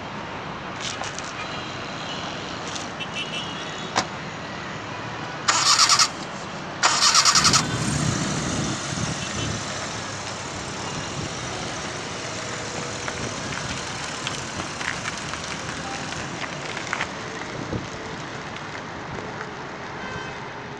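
Suzuki Mehran's small three-cylinder petrol engine being started: after a few clicks and a sharp knock, two short loud bursts of cranking, then the engine catches with a brief rev and settles into a steady run as the car drives off.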